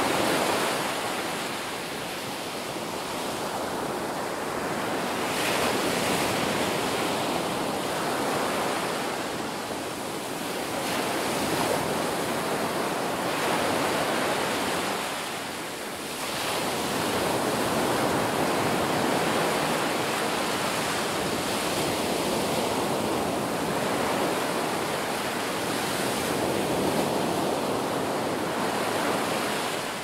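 Ocean surf: waves breaking and washing ashore one after another, a continuous rushing that swells and eases every several seconds.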